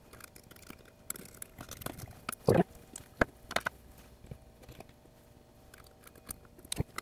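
Scattered small clicks and scrapes of hand tools working around the hook of a sewing machine as a wad of tangled thread is picked out from underneath it, with a louder cluster of handling noise about two and a half seconds in and a sharp click just after.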